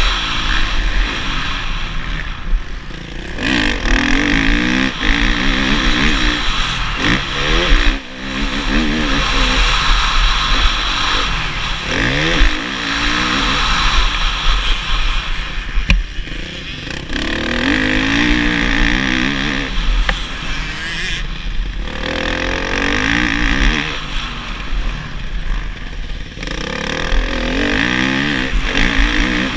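Motocross bike engine, heard from the rider's helmet camera, revving hard out of corners and over the track, its pitch climbing again and again and falling off between runs as the throttle is opened and shut.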